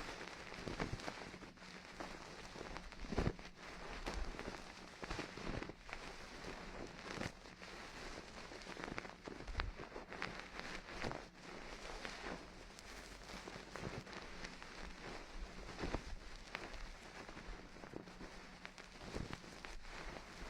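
Close-miked ASMR ear-cleaning sounds: a dense, irregular run of small clicks and crackles, with now and then a louder knock.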